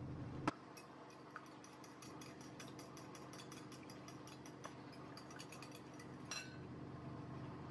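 Fork beating eggs in a glass bowl: a sharp click about half a second in, then rapid faint clinking against the glass several times a second, ending with a louder clink near the end.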